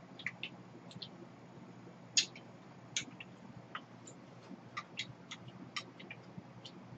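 Quiet eating sounds: scattered small clicks and taps of spoons and chopsticks against bowls and of chewing, irregular, the sharpest about two seconds in.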